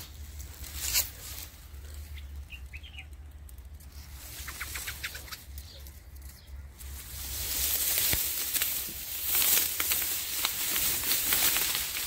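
A few faint short bird chirps, then from about halfway a loud rustling and crackling of dry reeds and grass stems being brushed and pushed aside.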